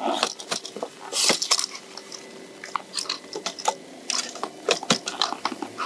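Irregular close-up clicks and crunches of Karakoram splitboard bindings being handled and fitted on the board in snow, with the crunch of snow under the gear.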